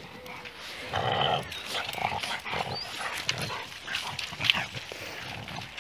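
Dogs in a pack at play: one dog makes a loud vocal sound about a second in, followed by shorter dog noises and scuffling.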